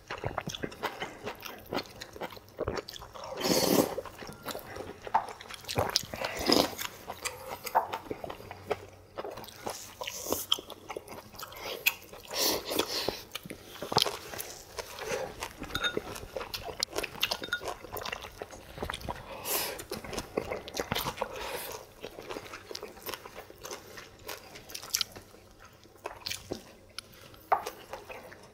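People chewing and biting food close to the microphone, with short crunchy and wet eating noises and occasional sharp clicks scattered throughout.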